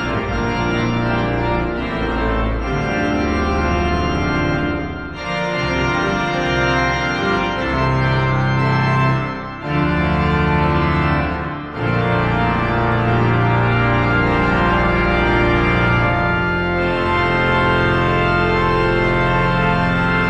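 Letourneau Opus 107 pipe organ playing a fanfare loudly in full sustained chords over deep pedal bass notes. There are three short breaks between phrases, about five, nine and a half, and twelve seconds in.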